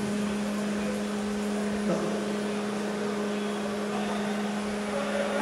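Steady machine hum holding one unchanging low tone, with a fainter higher tone above it.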